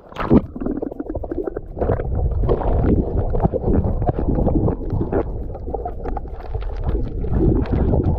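A sharp splash just after the start, then continuous sloshing shallow seawater with a heavy low rumble of wind on the microphone.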